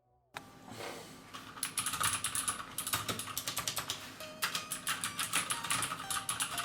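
Rapid typing on an XPG Summoner mechanical keyboard with Cherry MX Blue switches: a dense, fast run of sharp, high clicks from the clicky switches, starting about a third of a second in.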